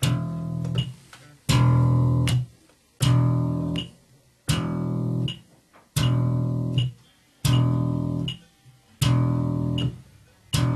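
Electric bass slapped with the thumb on the low E string, one note every second and a half: a quarter note followed by a quarter rest at 80 beats a minute. Each note is cut off sharply by the left hand muting the string. Faint metronome clicks fall between the notes.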